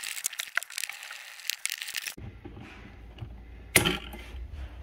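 Small scratchy clicks of a hand screwdriver working a screw at a metal outlet box plate, then stiff electrical wires being handled, with one sharp click near the end.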